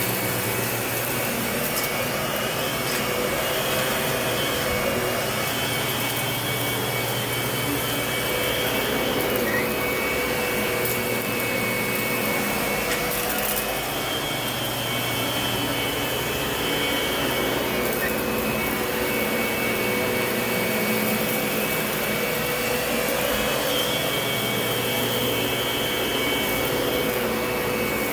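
Lindhaus vacuum cleaner running steadily while vacuuming, with a higher whine that rises in and fades out three times, several seconds each time.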